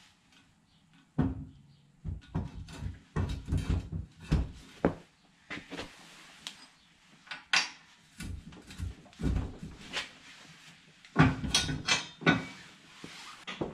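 Steel spreader bracket being worked into an ATV's rear hitch receiver: irregular metal clunks, knocks and rattles in several clusters, loudest about eleven seconds in.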